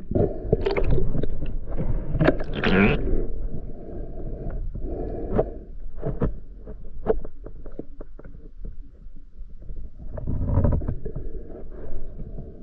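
Water sloshing and splashing, with scattered sharp knocks and clicks, and a louder splash about two to three seconds in.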